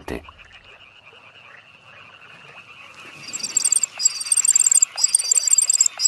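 Common cuckoo chick begging for food, giving rapid, high-pitched chirps in quick runs that start about three seconds in. Its begging is as loud as a whole brood of reed warbler chicks.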